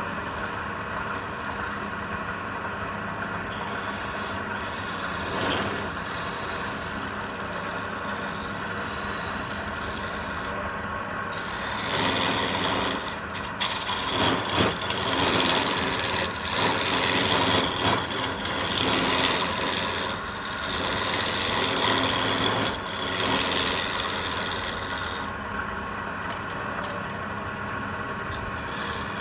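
Wood being worked on a running woodturning lathe: a steady motor hum with scratchy rubbing of tool or abrasive against the spinning piece, fainter early on and louder in long passes through the middle.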